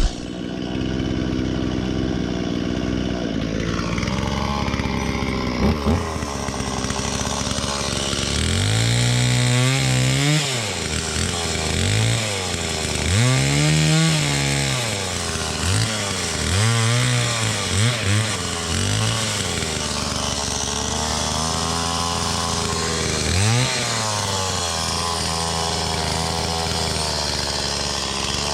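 Two-stroke chainsaw engine running, its pitch rising and falling again and again as the throttle is worked, then settling back to a steadier run near the end.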